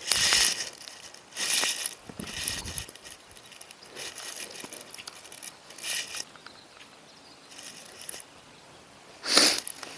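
Irregular rustling and clicking of fishing tackle being handled, about seven short bursts a second or two apart.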